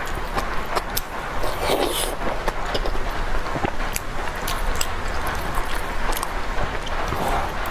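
Close-miked eating sounds: chewing with many small wet mouth clicks, and chopsticks lifting soupy noodles from the bowl, over steady background noise.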